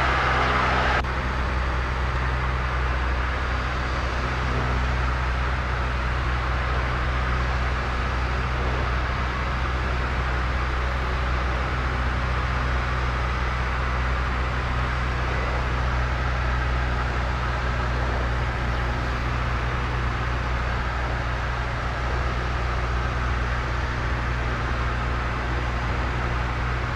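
Light single-engine piston airplane's engine and propeller heard inside the cabin: a steady, unbroken drone with a low hum under broad cabin noise.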